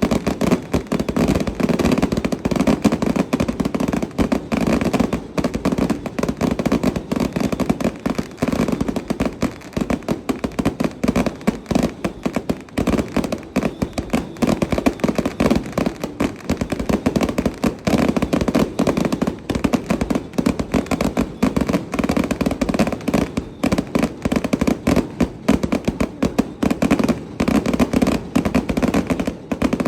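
Fireworks and firecrackers going off in a dense, unbroken crackle of many rapid bangs a second, without a pause.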